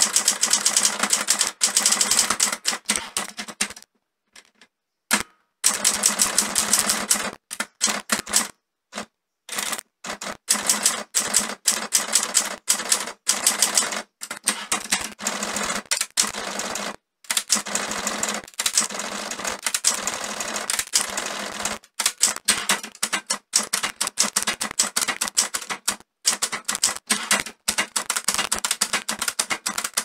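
Olympia SG1 manual office typewriter being typed on: rapid key and typebar strikes in quick runs, broken by short pauses, the longest about four seconds in.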